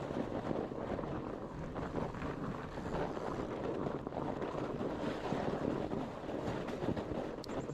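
Wind rushing over a GoPro action camera's microphone together with a fat bike's tyres rolling over a dirt trail, a steady rumbling hiss. A couple of faint light clicks come near the end.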